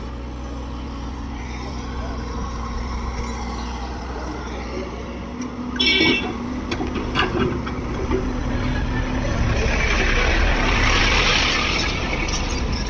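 Diesel engine of an earthmoving machine running steadily under load. About six seconds in there is a short high-pitched sound, and from about ten to twelve seconds a louder rush of noise.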